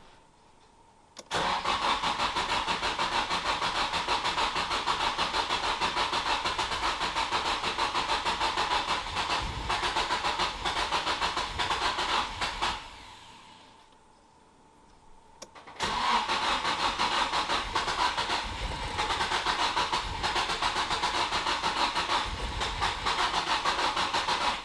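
Nissan SR20DET turbo four-cylinder being cranked by its starter motor in two long attempts of about eleven and nine seconds, with a short pause between. The cranking stays even throughout: the engine is not catching.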